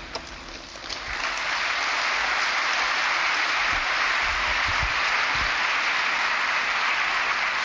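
Audience applauding: the clapping swells in about a second in and then holds steady.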